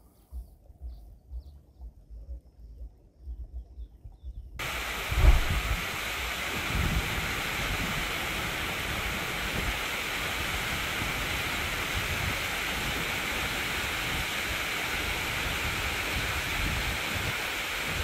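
Shallow stream rushing over rocks, a steady hiss that starts abruptly about four and a half seconds in. Wind gusts thump on the microphone. Before the stream comes in there is only a low wind rumble.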